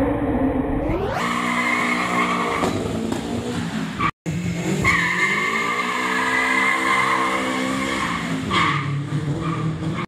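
Nissan 200SX drifting: its engine is held high, the revs swelling and dipping, while the rear tyres squeal in a steady high tone. The sound cuts out for a moment about four seconds in, then a second slide with the same engine and tyre squeal follows.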